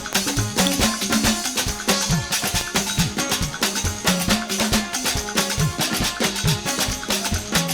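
Live church band playing an upbeat instrumental praise groove: busy percussion with shakers and drums over a moving bass line, at a brisk steady rhythm.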